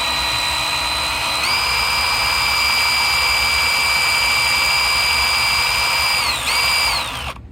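Electric drill run at speed: its motor whines steadily, speeds up about a second and a half in, eases off near the end, gives one short burst of the trigger and stops.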